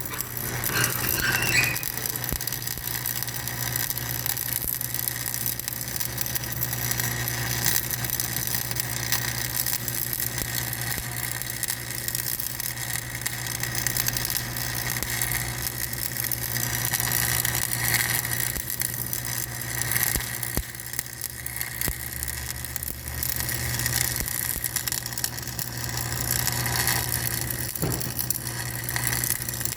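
Heavy machine running steadily: a constant low engine hum with high-pitched squeals, rattles and clicks over it.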